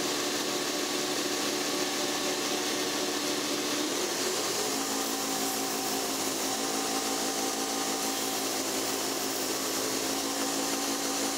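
Belt grinder running with a welded steel billet pressed against the abrasive belt on its contact wheel: a steady grinding hiss over the motor's hum. The hum steps up slightly in pitch about four seconds in.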